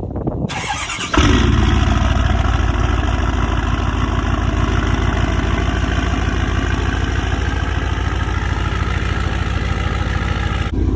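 Truck engine cold-started after sitting about two weeks: it cranks briefly, catches about a second in, then idles loudly and steadily.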